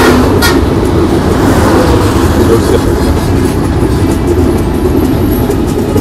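Passenger train running at speed: a steady loud rumble and rattle of the carriages, with a couple of sharp clacks near the start. Road traffic runs alongside on the bridge's adjacent road deck.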